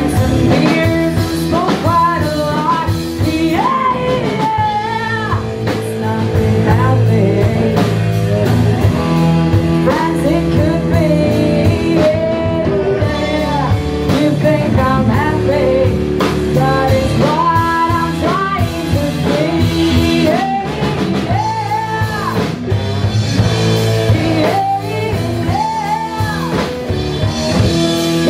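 Live rock band playing a song: electric guitar, bass guitar and drum kit, with a woman singing lead over them.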